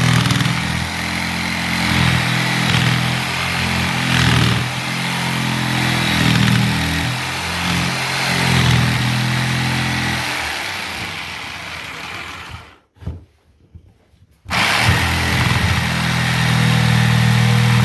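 A small engine running with its speed wavering, loud and steady. It stops for about a second and a half near the 13-second mark, then runs again.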